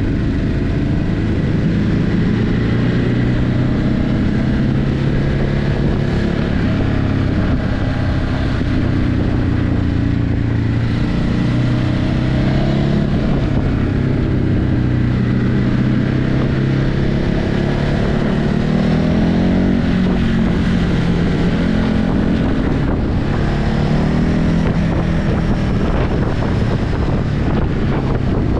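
Ducati Hypermotard 950's 937 cc L-twin engine through its stock exhaust, riding along with the revs rising and falling several times as the throttle opens and closes, with wind noise on the microphone.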